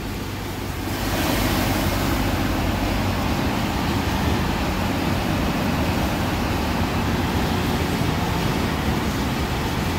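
Steady in-cab noise of a truck driving on a rain-soaked motorway: a low engine drone under the hiss of tyres on the wet road and rain on the cab, growing a little louder about a second in.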